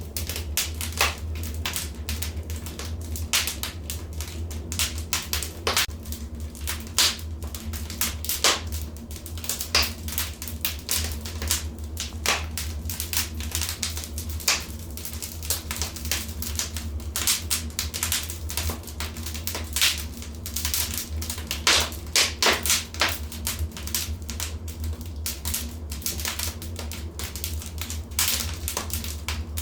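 Fireplace fire crackling: irregular sharp pops and snaps of varying loudness, several a second, over a steady low rumble of the flames.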